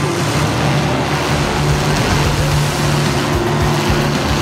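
Demolition derby cars shoving against each other: engines running hard under load with a front tyre spinning on the wet track, a loud, steady wash of engine and tyre noise.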